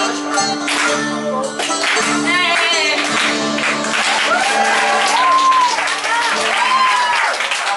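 Greek dance music with held low notes, with people clapping along throughout and voices calling out in rising and falling whoops in the second half. The held notes stop about six and a half seconds in.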